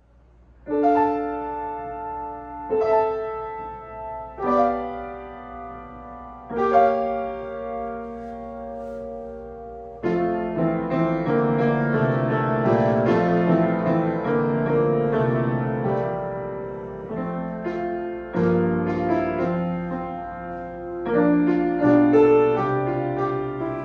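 A Chickering & Sons baby grand piano (built 1965–1970) being played. Four slow chords are struck and left ringing, then from about ten seconds in the playing becomes a continuous passage with bass and melody. The piano has a rattle, which the tuner suspects comes from the action or from an object lying on the soundboard.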